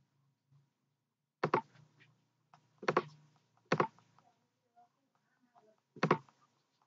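Computer mouse clicked four times, sharp single clicks spaced a second or more apart, close to the microphone.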